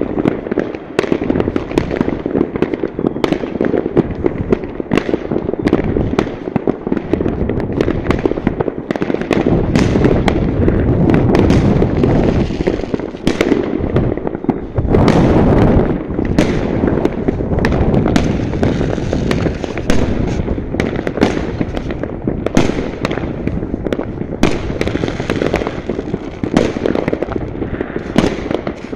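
Many fireworks going off at once, a dense, irregular crackle of bangs over a continuous low rumble of distant explosions.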